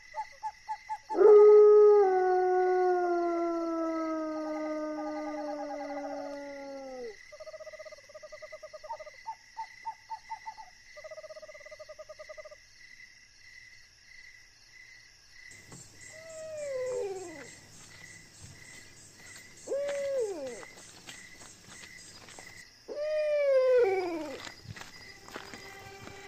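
Eerie sound effects on the soundtrack. First a long tone slides slowly downward, then come short pulsed beeps. After that, three short howls rise and fall, one about every three seconds, over a steady high whine.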